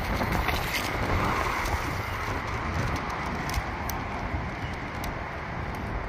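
Strong wind buffeting the phone's microphone: a steady rushing, rumbling noise, with a few light clicks.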